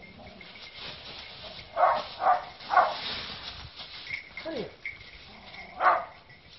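Hunting dog barking: three quick barks about two seconds in, then a single bark near the end.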